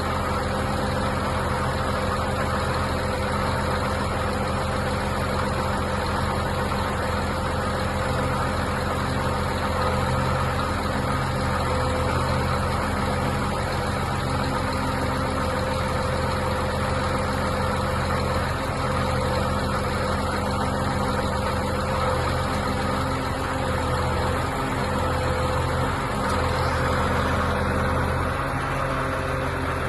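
Diesel engine of a Mercedes-Benz Actros 3241 concrete pump truck running steadily at a constant speed. Its tone shifts slightly near the end.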